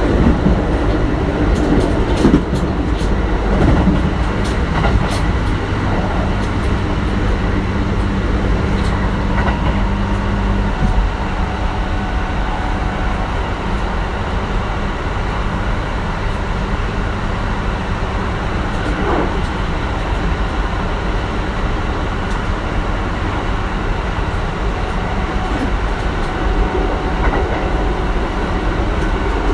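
Kintetsu 1420 series electric train running, heard from on board: steady wheel-and-rail rumble with a few rail-joint clicks early on, and a steady low hum from the Mitsubishi GTO-VVVF traction drive that stops about eleven seconds in.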